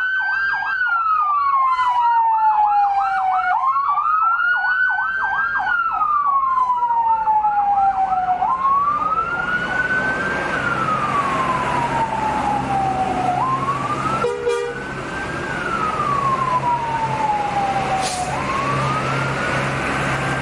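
Police escort car siren wailing, rising and falling about every five seconds. A faster warbling siren runs over it for the first eight seconds or so. Bus engines and traffic noise grow beneath it after that.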